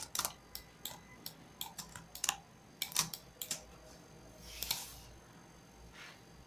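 Computer mouse and keyboard clicks: a quick, uneven run of a dozen or so sharp clicks over the first three and a half seconds, then a brief soft rustle near five seconds.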